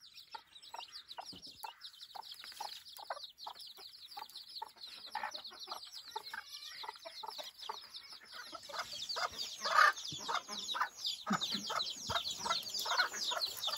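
A brood of bantam chicks peeping, many rapid high peeps on top of one another, while the bantam hen clucks in short low calls among them. The peeping and clucking grow louder about two-thirds of the way through.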